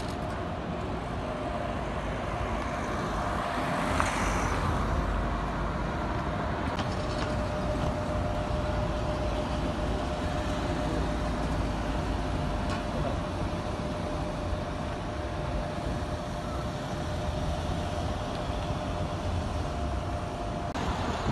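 City street traffic: cars driving past over a steady rumble, one swelling louder about four seconds in. A faint steady tone runs underneath.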